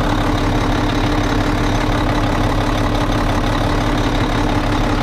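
A Mack truck's MP7 inline-six diesel engine running steadily, with an even hum at a constant pitch and no change in speed.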